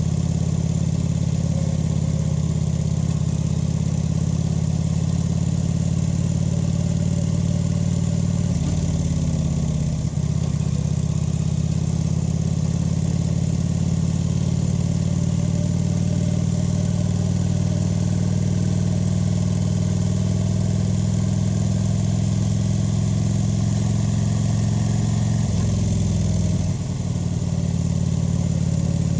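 Kawasaki VN 900's V-twin engine and exhaust running steadily while riding, with two brief dips in the engine note, about ten seconds in and near the end.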